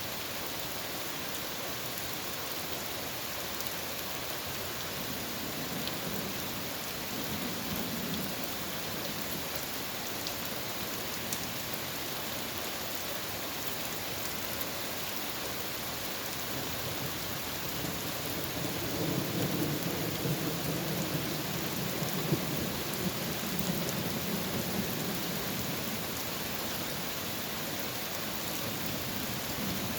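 Steady rain falling during a thunderstorm, with thunder rumbling twice: a short low roll about five seconds in and a longer, louder rumble from about eighteen to twenty-six seconds.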